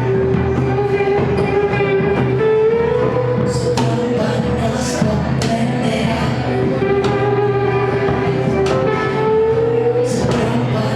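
Live psychedelic rock band playing, with long held lead notes that slide upward twice over bass and drums, and cymbal strokes.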